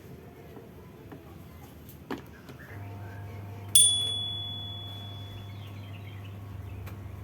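A click, then the electric fan motor starts a steady low mains hum that runs on. About a second after the hum starts, a single sharp metallic ping rings out and fades away.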